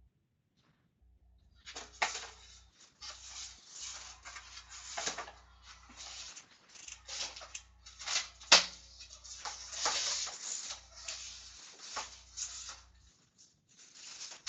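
Irregular rustling and crinkling of card packs and wrappers being handled and torn open, with a few sharper crackles.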